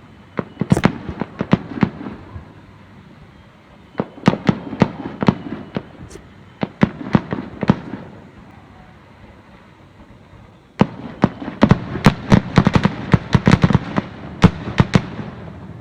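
Fireworks bursting in clusters of sharp bangs and crackles with short lulls between, picked up by a smartphone microphone. About eleven seconds in, the background level jumps suddenly and a dense rapid run of bangs follows.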